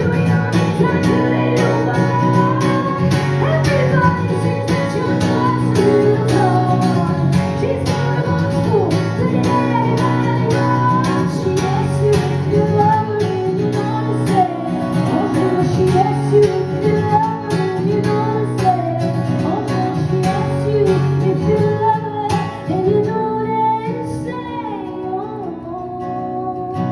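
Live band playing a song with female lead vocals, guitar and a steady drum beat. The drums drop out about 22 seconds in, leaving guitar and voice.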